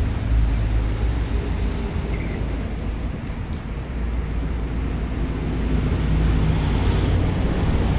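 Mitsubishi PS100 truck's diesel engine running steadily, a little quieter in the middle and picking up again toward the end.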